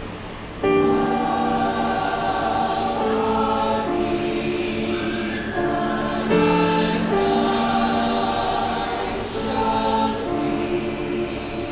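Chamber choir singing Christmas music in held, full chords, coming in strongly about half a second in.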